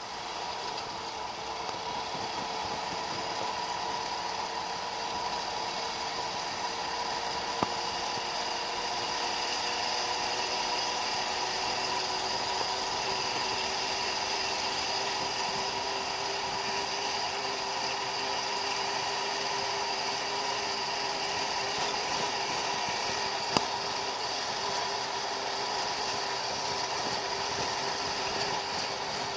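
GAZ-63 truck's six-cylinder flathead petrol engine running steadily, with a steady whine over it. Two sharp knocks come through, one about a quarter of the way in and one near the end.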